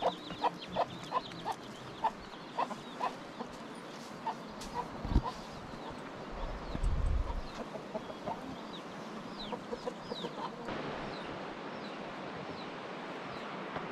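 Chickens clucking: a run of short repeated clucks that slows and thins out over the first few seconds. A single thump comes about five seconds in, with a brief low rumble just after, and small birds chirp faintly later.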